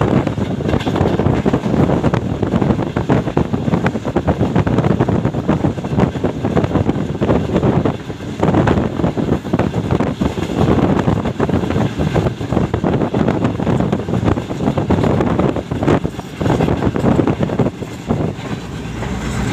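Passenger train running at speed, heard from on board: a steady rumble with clatter from the coach and wheels on the track, and wind buffeting the microphone.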